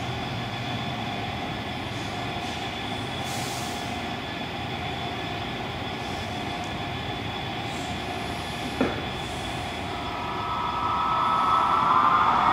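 Model Class 153 diesel unit running on the layout, its DCC sound decoder playing a steady diesel engine sound through a small on-board speaker along with the running noise of the wheels on the rails. A single sharp click comes about nine seconds in, and the sound grows louder near the end.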